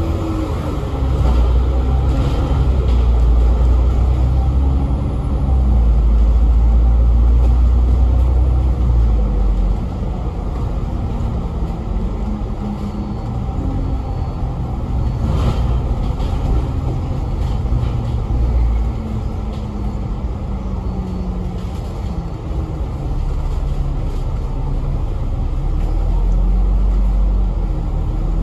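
Citybus double-decker bus under way, heard on board: steady engine and drivetrain drone whose pitch rises and falls as the bus speeds up and slows. The low rumble is heavier in the first ten seconds and again near the end. A single sharp click comes about halfway.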